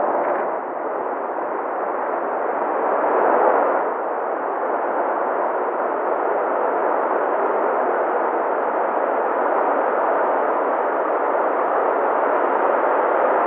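Steady radio hiss from an air traffic control receiver between transmissions, with a slight swell about three seconds in.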